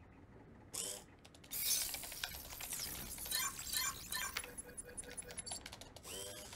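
Sci-fi film sound effects for an android: a short pitched servo whir about a second in and again near the end, with a stretch of clicking, ratcheting mechanical noise in between and a quick run of faint electronic beeps about two-thirds of the way through, as the android's scanning display runs.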